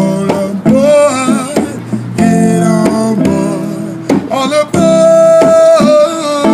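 A busker's song: acoustic guitar with a singing voice, played as the soundtrack.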